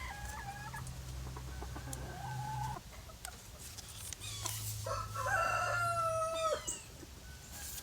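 Roosters crowing: three drawn-out crows, the longest and loudest coming about two-thirds of the way through.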